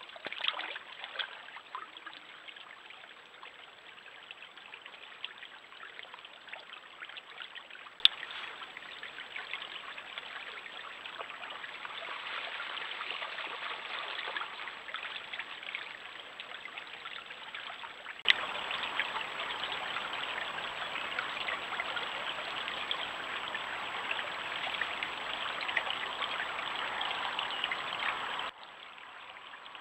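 A small stream running and trickling over stones, a steady rush of water that grows louder about two-thirds of the way through. Two sharp clicks cut across it, about a quarter and two-thirds of the way in.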